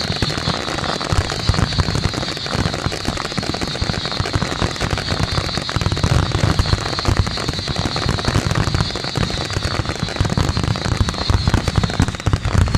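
Fireworks finale: aerial shells bursting in a dense, unbroken barrage of bangs, with a steady high hiss of crackle running over it that fades near the end.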